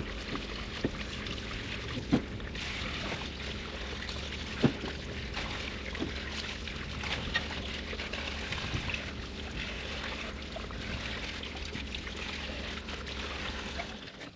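Water from a garden hose spraying onto a cast iron planer base casting to rinse it off, a steady hiss with a few sharp knocks; the spray cuts off near the end.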